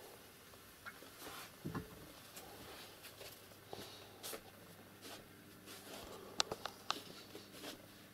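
Quiet room with a low steady hum and scattered small clicks and light knocks, with a sharper run of clicks about six and a half seconds in.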